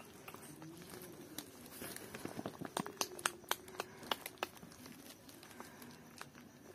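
Newborn puppies suckling at their mother: a quick run of small wet clicks and smacks from about two to four and a half seconds in, with soft rustling of fur.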